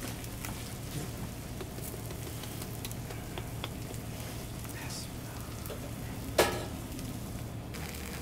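Food sizzling and crackling as it grills, with scattered small pops and one sharp metal clink about six seconds in.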